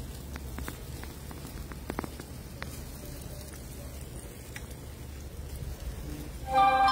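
Wood fire crackling, with scattered sharp pops over a steady hiss. A short pitched sound comes near the end and is the loudest moment.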